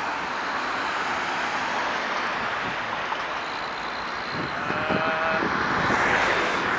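Steady road traffic noise from passing vehicles, swelling a little about five to six seconds in as a vehicle goes by.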